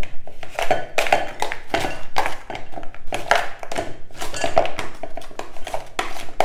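Frozen banana chunks and berries being pushed out of a freezer bag with a kitchen utensil, knocking and clattering into a glass bowl: a quick, irregular run of taps and knocks.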